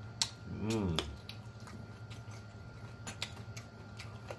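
Close-up mouth sounds of a man eating fried chicken: wet smacks and clicks scattered throughout, with a short falling 'mmm' hum about half a second in.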